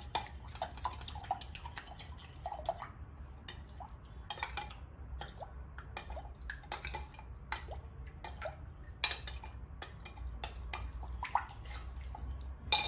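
A spoon stirring milk and buttermilk in a glass measuring jug, clinking and tapping irregularly against the glass, to dissolve the sugar in it.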